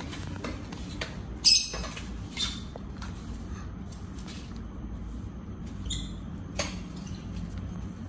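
Young lovebird chicks giving a few short, high cheeps, the loudest about a second and a half in and another near six seconds. Light taps and rustles come from the chicks being handled, over a steady low hum.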